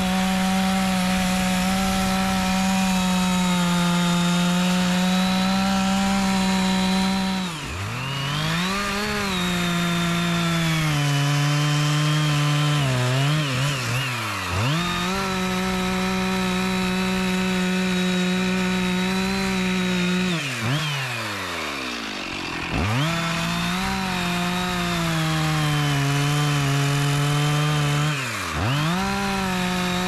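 Two-stroke chainsaw running at high revs while cutting teak. Its engine note sags under load and drops sharply and climbs back about five times as the throttle is eased off and squeezed again. Once, about two-thirds of the way through, it falls nearly to idle for a second or two.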